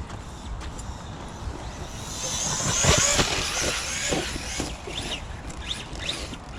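Electric RC monster truck (Team Associated Rival MT10 on Sledgehammer tyres) driving close by, its motor whining high and its tyres rushing over the ground, loudest about three seconds in and then fading as it moves away.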